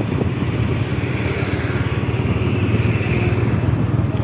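Motorbike engine running steadily at an even pitch, loud and close to the microphone.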